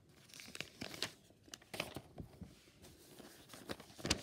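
Sheets of drawing paper rustling and crinkling as they are handled and a page is turned over, with a louder rustle near the end.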